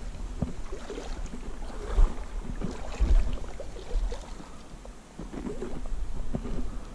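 Shallow river water sloshing and splashing around a person's legs as they wade slowly, with a few dull knocks.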